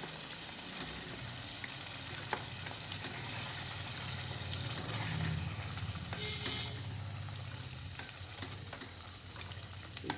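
Chicken pieces and yogurt sizzling in a metal pot while a spatula stirs them, with a few light taps and scrapes of the spatula against the pot.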